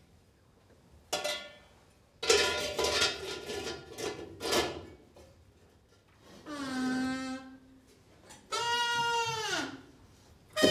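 Wordless vocal sounds from a puppeteer's voice. There is a short call about a second in, a busier stretch of sounds, then two long held notes, the last one bending down in pitch at its end.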